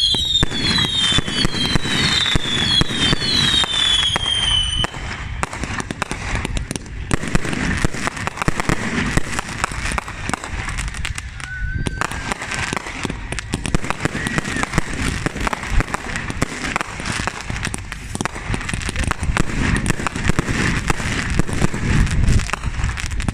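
Fireworks going off. Several whistles fall in pitch one after another for the first few seconds, then comes a dense, continuous run of crackling bangs.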